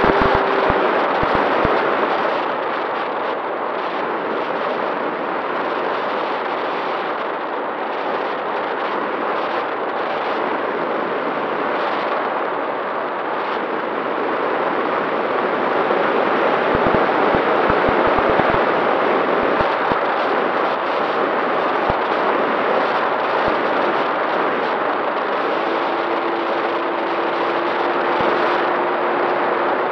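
Onboard sound of an electric FPV plane in flight: wind rushing over the camera with the brushless motor and 7x5 propeller humming steadily, and scattered low buffeting knocks. A second, lower motor tone comes in near the end.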